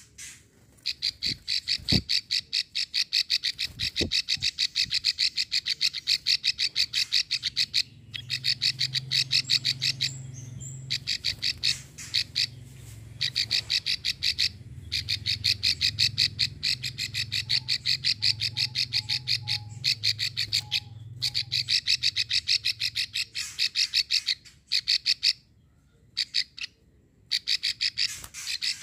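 Female plain prinia (prenjak sawah) giving its long 'klik' call: runs of rapid, dry clicks lasting several seconds each, broken by short pauses.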